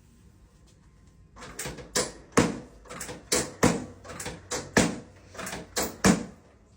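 A quick run of sharp knocks, about three a second, starting a little over a second in, with four louder ones among them.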